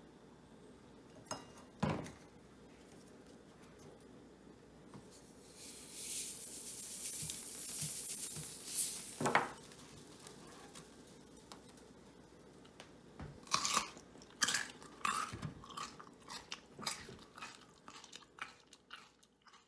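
Crunchy biting and chewing of a potato, a quick run of crisp cracks in the last few seconds. Earlier come a couple of single knocks and a steady hiss lasting a few seconds.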